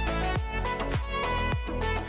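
Background music: a steady drum beat with a bowed-string or synth melody over it.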